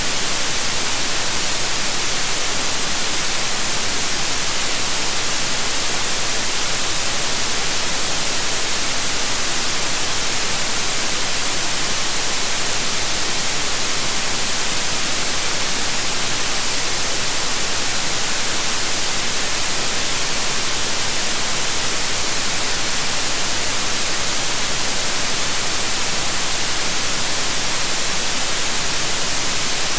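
Synthetic white noise: a steady, even hiss, strongest in the high frequencies.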